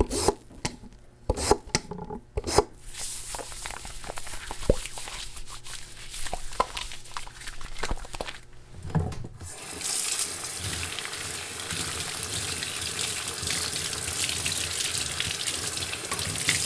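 Hand washing at a sink with soap: scattered small clicks, knocks and rubbing for about the first nine seconds, then the faucet comes on and water runs steadily into the sink.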